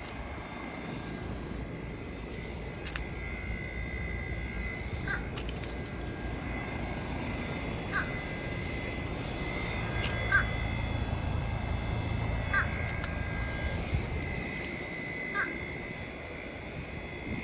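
Outdoor heat pump unit running with a steady low hum and a thin steady whine. A bird gives short calls every two to three seconds over it.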